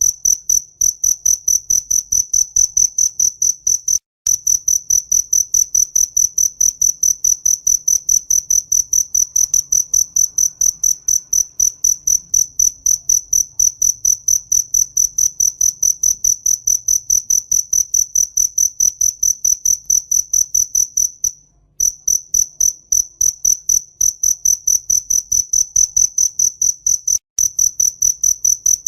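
A cricket chirping close by: a single high-pitched tone pulsed in a rapid, even rhythm, several chirps a second. The chirping breaks off briefly about four seconds in, pauses for about half a second a little past two-thirds of the way through, and drops out briefly again near the end.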